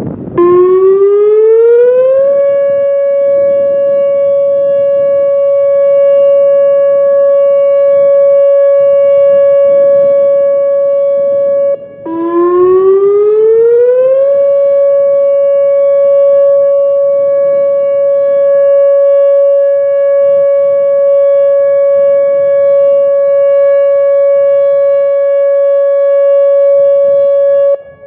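Whelen WPS 2905 electronic warning siren sounding its steady 560 Hz alert tone. The pitch rises over about two seconds, holds steady for about ten seconds, cuts out for a moment, then rises and holds again.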